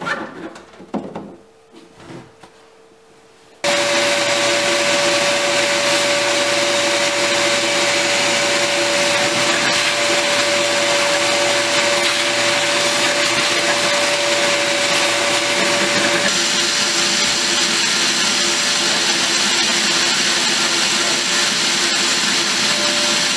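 A few light knocks and clicks of handling, then about three and a half seconds in a wet/dry shop vacuum switches on and runs steadily with a held hum. Its tone changes slightly about two-thirds of the way through.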